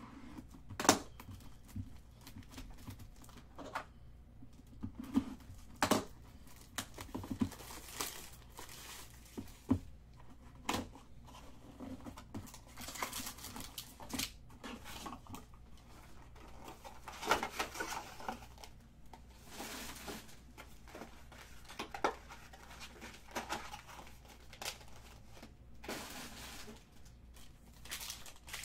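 Foil Bowman Chrome card-pack wrappers crinkling and tearing as packs are opened by hand, with scattered irregular crackles and handling clicks; a sharp one about a second in is the loudest.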